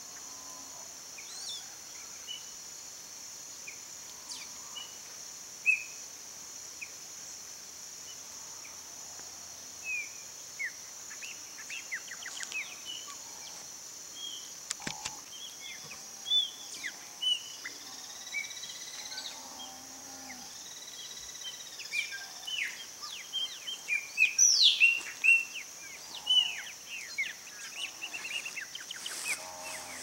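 Chopi blackbirds and other songbirds at a feeder giving short chirps and whistles, sparse at first and busier and louder in the last third, over a steady high-pitched drone of insects. A single sharp knock about halfway through.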